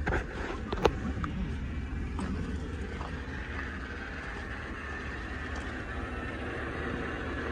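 2016 Chevrolet Tahoe police SUV's V8 running: a steady low rumble with a faint higher hum, and a few sharp clicks in the first second.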